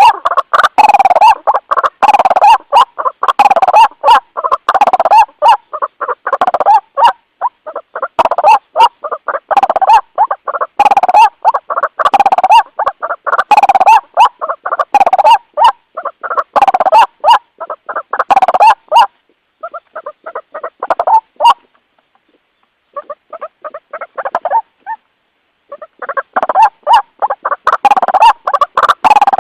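White-breasted waterhen calling with its loud, repeated 'ruak-ruak' call, a rapid run of short notes, the call it uses to call others of its kind. About two-thirds through, the calling thins to softer, broken notes with brief pauses, then picks up loud again near the end.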